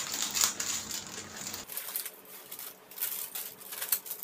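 Plastic snack packet crinkling and rustling as it is handled, an irregular run of small crackles.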